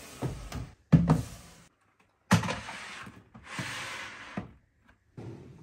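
Plastic pantry canisters and a clear plastic bin of cans being set down and slid on a shelf: a few sharp knocks and thuds, a scraping slide a little before the end, then one more light knock.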